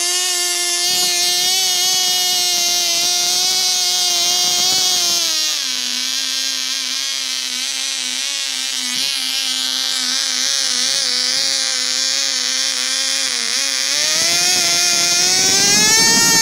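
COX Tee Dee .010 two-stroke glow model engine running flat out with a high-pitched buzz. Its pitch drops about a third of the way in, holds lower, and rises again near the end.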